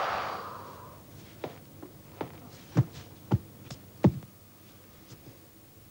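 A short rushing whoosh that fades over about a second, then five sharp knocks spaced about two-thirds of a second apart, in a small room.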